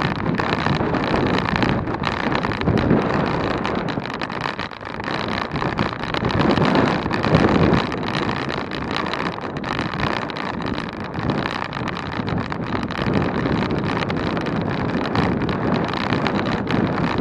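Wind rushing over the microphone on a bicycle ridden at speed, with a steady road rumble that swells and eases slightly.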